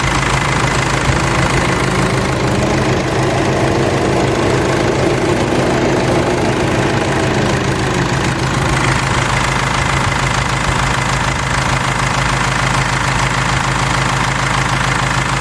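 Mercedes C220 CDI's four-cylinder diesel idling steadily with the electric radiator cooling fan running; a whir rises and then falls in pitch for a few seconds in the middle. This fan runs at full speed whenever its PWM control signal is cut.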